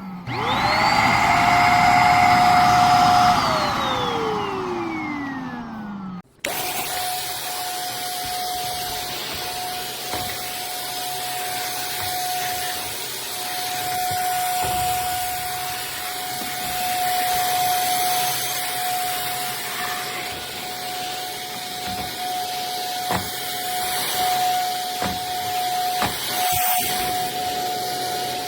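iwoly V600 corded stick vacuum's motor switched on, spinning up to a steady whine within a second, running about three seconds, then switched off and winding down with falling pitch. After a brief break, a steady motor whine with airflow hiss runs on, with a few clicks near the end.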